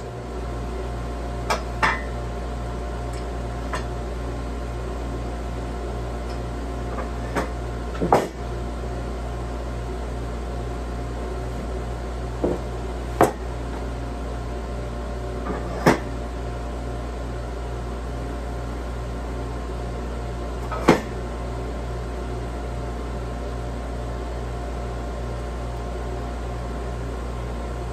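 Bandsaw mill's engine idling steadily, with a handful of sharp knocks, the loudest about 8, 13, 16 and 21 seconds in, as the timber is shifted on the mill's steel bed.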